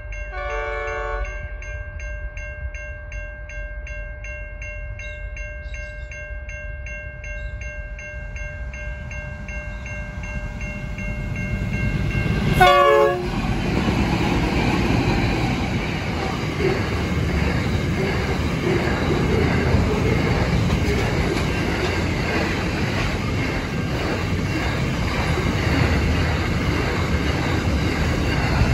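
A level crossing warning bell ringing in a steady fast rhythm, with a faint train horn about a second in. Near the middle a short, loud horn blast sounds, and then the NR class diesel-electric locomotives and a long train of container wagons run past with a steady heavy rolling noise.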